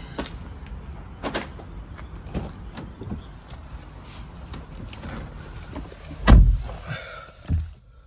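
Car door being opened with a few sharp clicks and knocks, then someone climbing into the seat. The door shuts with a heavy thump about six seconds in, followed by a smaller knock.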